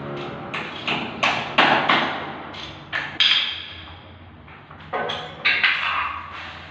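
Hammer strikes while a wash-basin bracket is fixed to the wall: a quick, irregular run of sharp knocks in the first three seconds, a pause, then a few more knocks.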